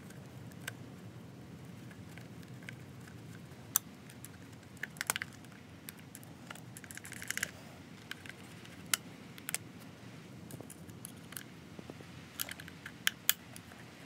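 Scattered sharp clicks and a short scrape about seven seconds in: a hand hex driver working the screws out of the plastic receiver box of an RC truck, with low room hiss underneath.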